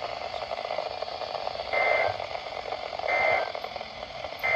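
Emergency Alert System end-of-message data bursts from a radio receiver. Three short, raspy digital chirps sound about 1.3 seconds apart over steady radio static, signalling the end of the weather alert broadcast.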